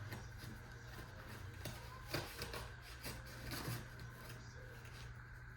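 Quiet handling noise: a few short rustles and scrapes about two seconds in and again a little later, over a steady low hum.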